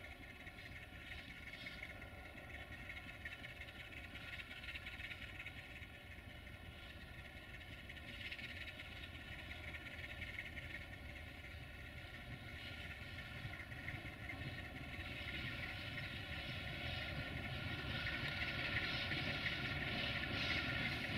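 LDE2100 (060-DA) diesel-electric locomotive's Sulzer engine running as it draws a tanker freight train slowly closer, a steady engine drone that grows gradually louder over the second half.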